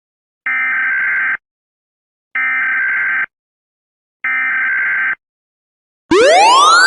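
EAS SAME header: three bursts of buzzy data tones, each about a second long and a second apart. About six seconds in, loud rising sweep tones begin, the start of the alert's attention signal.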